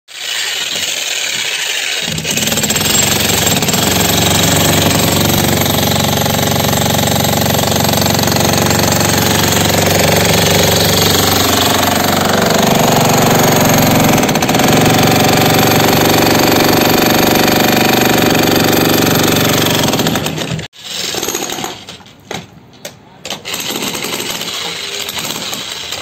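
Handheld electric demolition hammer chiseling into a concrete slab, running loud and steady. It stops abruptly about twenty seconds in, and a few short, uneven sounds follow.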